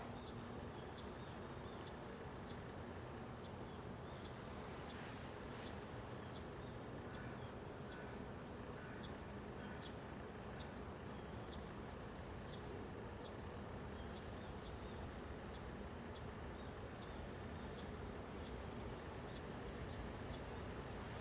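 Faint outdoor ambience with a short, high chirp repeating a little under twice a second.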